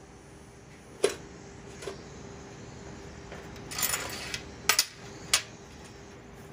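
Steel chain links and horseshoes clinking against a perforated steel welding table as they are handled: single sharp clinks about one and two seconds in, a short rattle near four seconds, then three quick clinks, over a faint steady hum.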